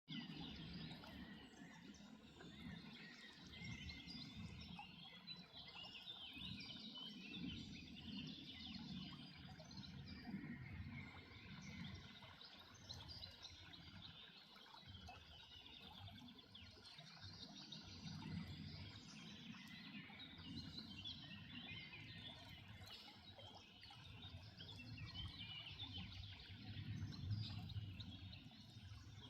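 Faint outdoor ambience of many small birds chirping and twittering throughout, over a low, uneven rumble.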